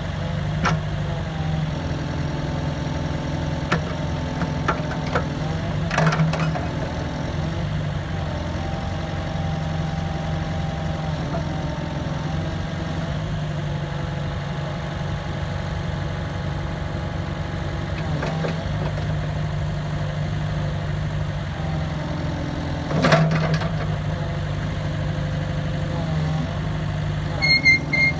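Komatsu PC hydraulic excavator's diesel engine running steadily, with a whine that steps up and down in pitch as the machine works. A few sharp clanks come through, the loudest about 23 seconds in, and there are short high squeaks near the end.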